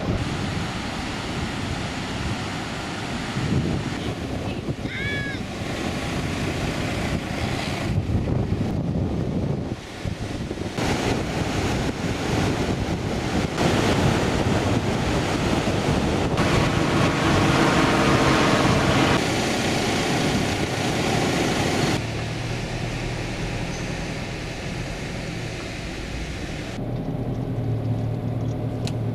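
Wind on the microphone and surf on a beach, with four-wheel drives running on the sand; the sound changes abruptly several times. Over the last few seconds, a vehicle engine's steady low drone heard from inside the cab as it drives along the beach.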